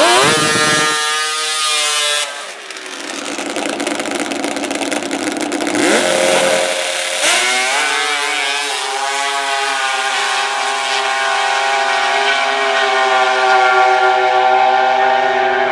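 Drag-racing snowmobile engine revved hard at the start line, dropping off after a couple of seconds. It revs again, then launches at full throttle: the pitch climbs for about three seconds and settles into a high steady note as the sled runs down the strip.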